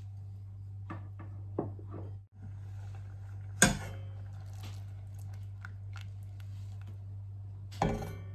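Quiet kitchen sounds over a steady low hum: a few light clicks in the first two seconds, then two sharp knocks, one about three and a half seconds in and one near the end.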